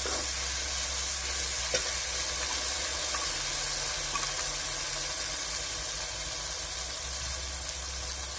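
Onion, tomato and spice masala sizzling steadily in hot oil in a large metal kadhai. A steel ladle stirs it at first, with one short knock about two seconds in.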